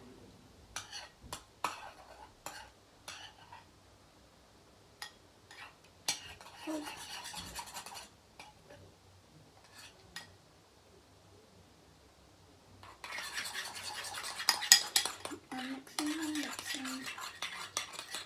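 A spoon stirring and scraping in a bowl of thick shampoo and salt, with a few separate clinks at first, a short bout of stirring about six seconds in, and a longer, louder bout near the end.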